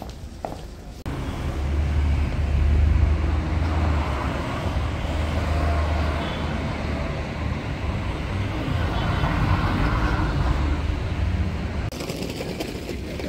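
Road traffic: a vehicle's engine running close by, a steady low rumble with street noise over it. It starts abruptly about a second in and drops away near the end.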